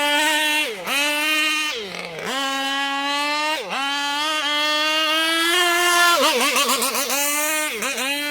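Zenoah two-stroke petrol engine of an RC boat running at high revs, its pitch dropping sharply and climbing straight back about four times as the throttle is eased and reopened, then wavering unsteadily near the end.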